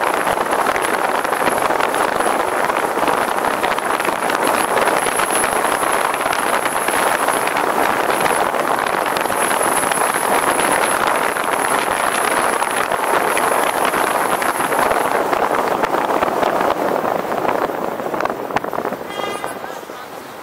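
Steady rushing road and wind noise of a vehicle moving through city streets, with a faint high whine that stops about three-quarters of the way through. The noise eases off over the last couple of seconds, and a brief pitched buzz comes about a second before the end.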